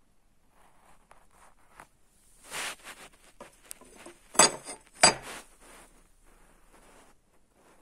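Handling noise: rustling and light scraping, with two sharp clicks a little under a second apart near the middle.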